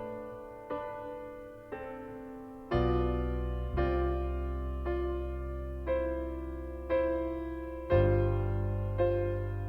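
Background music: slow piano chords, about one a second, each left to fade, with a deep bass note coming in about three seconds in and again near eight seconds.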